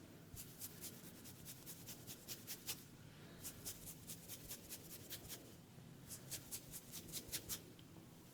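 Quick, light, crisp strokes on a person's hair and scalp during a head massage, about five a second, in three runs broken by short pauses.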